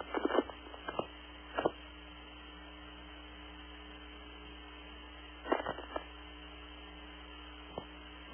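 Steady electrical hum and faint hiss on a radio communications feed, broken by a few short blips and clicks.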